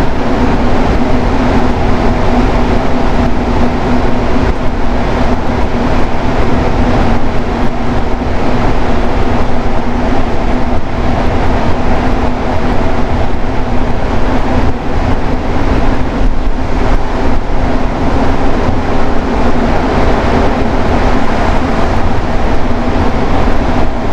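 Rubber-tyred Montreal metro train running between stations, heard from inside the car: a loud, steady rumble with a constant hum.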